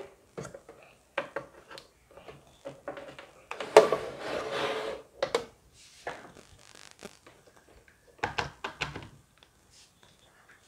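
Handling noises of a power cable being fitted and plugged in: irregular clicks and knocks with a stretch of rubbing and scraping about four seconds in, and a few more knocks near the end.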